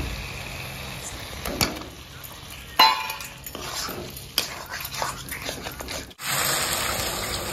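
Peeled boiled eggs tipped from a steel bowl into a kadai of frying masala, a metal spatula clinking and scraping against the pan as it stirs them, with a light sizzle underneath; the loudest sharp ringing clink comes about three seconds in. Near the end the sound cuts abruptly to a steadier, louder hiss.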